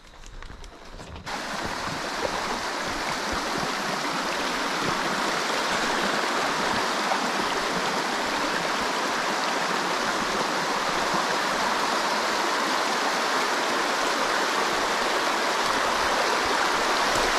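Shallow creek water running steadily over a bed of rocks and stones. The sound starts suddenly about a second in, after a few faint clicks of gear being handled.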